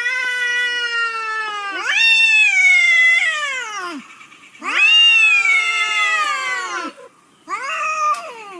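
Cats in a face-to-face standoff, yowling: four long, wavering wails in a row, each sagging in pitch as it ends, with short pauses between.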